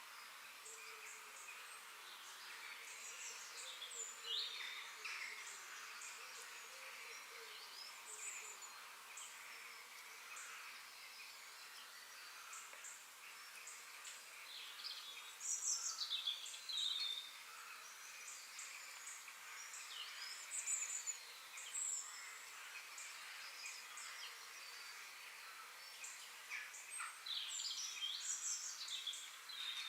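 Forest ambience: several birds chirping and singing in short phrases, busiest in a few clusters, over a steady high hiss from insects.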